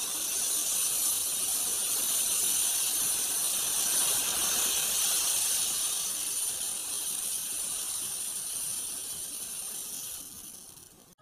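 Packed matchsticks burning, a steady hiss of match heads flaring that fades over the last second or two as the flames die down.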